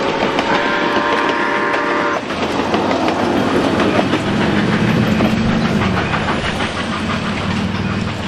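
Passenger coaches of a steam-hauled train rolling past close by, their wheels clicking over the rail joints; the last car goes by and the sound eases as the train pulls away. Early on a steady chord-like whistle sounds for about a second and a half and stops abruptly, and a low drone comes up about halfway through.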